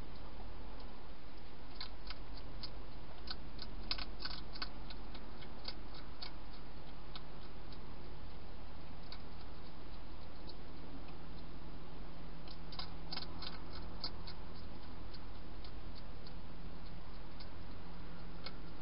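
A wild hedgehog crunching dry food: runs of quick, sharp clicks, one bout a couple of seconds in and another after about twelve seconds, over a steady low hum.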